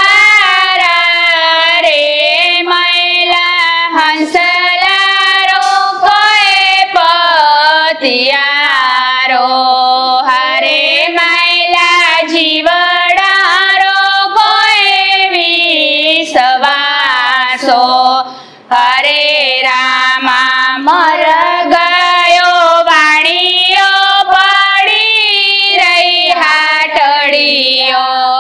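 Women's voices singing a Hindu devotional kirtan (bhajan) together, one melodic line held continuously, with a short break for breath about two-thirds of the way through.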